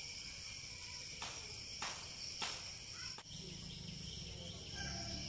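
Steady high-pitched chorus of insects, with a few faint taps a second or two in.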